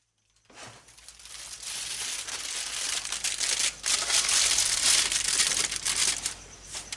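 Aluminium foil crinkling as a foil-wrapped packet of ribs is handled, building up after about a second and stopping shortly before the end.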